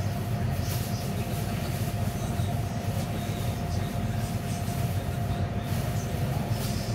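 A steady low mechanical hum, like plant or machinery running, with a faint constant high whine over it.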